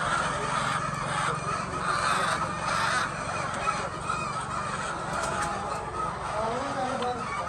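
A flock of chickens clucking and squawking together, many overlapping calls at once, over a steady low hum.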